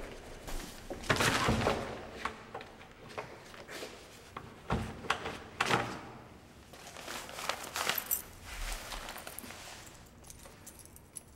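A few footsteps, then keys jangling and a key being worked in a door lock, heard as a string of separate clicks and knocks.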